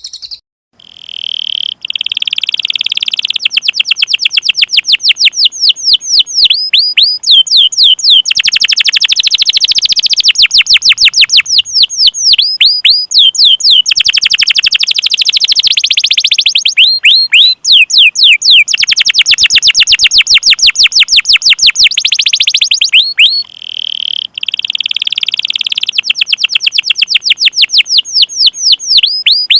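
Recorded songbird song played as a masteran training track: loud, long runs of very fast repeated chirping trills, some stretches of sharply hooked notes, broken briefly about a second in and again near the end by a short buzzy note.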